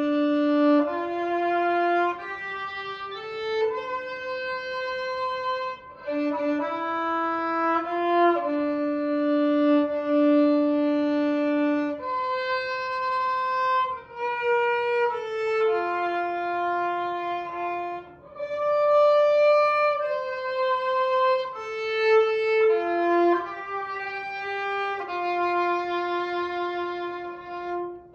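Background music: a slow solo violin melody of long held notes.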